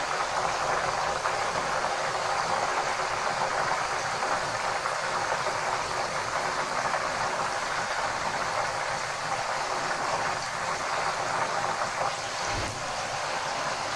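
Whole marinated chicken deep-frying in hot oil in a wok-style pan, the oil sizzling and bubbling steadily with fine crackling.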